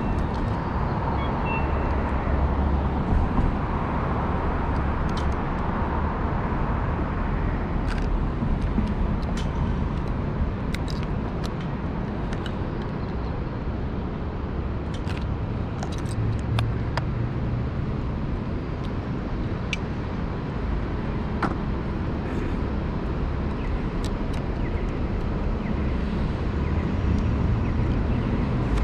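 Steady downtown street traffic: cars and buses running, with a few light clicks scattered through it.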